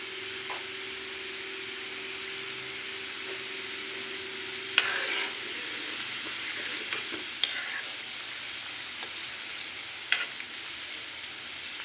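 Gujiya pastries deep-frying in hot oil, a steady sizzle of bubbling oil. A metal slotted spatula clicks against the pan three times, the sharpest about five seconds in.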